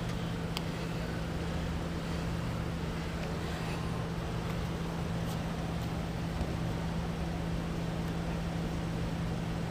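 Steady low hum of idling vehicle engines over constant background noise, with no change in pitch.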